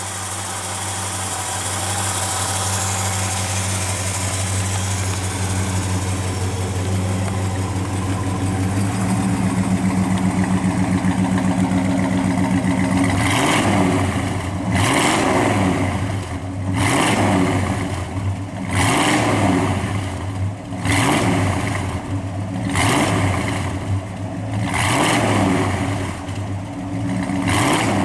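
1968 Dodge Coronet R/T's 440 Magnum big-block V8 idling steadily. About halfway through it is revved, with about eight throttle blips roughly two seconds apart, each rising and falling back to idle.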